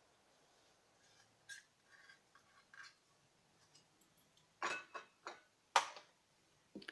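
Kitchen utensils clicking and knocking against a bowl or container while the marinade is put together: a few faint ticks, then a handful of sharper knocks in the second half.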